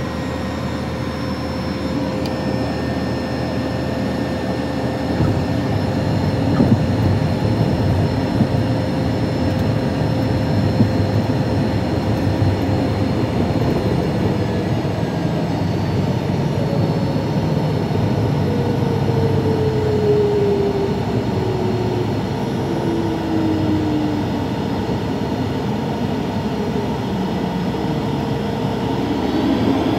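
Cabin noise inside a Cirrus Vision Jet on its landing roll: the rear-mounted Williams FJ33 turbofan and the rumble of the wheels on the runway. A few thumps come about six to eleven seconds in, and a steady whine falls in pitch through the second half as the jet slows.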